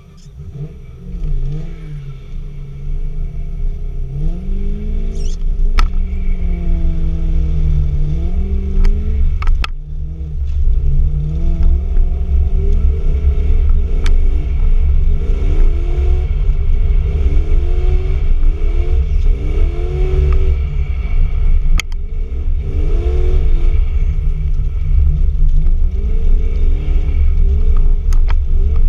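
Toyota Cresta's engine heard from inside the cabin, revving up and dropping back over and over as the car accelerates and is driven hard on ice, over a heavy low rumble. It swells in within the first few seconds, and a few sharp clicks or knocks come through along the way.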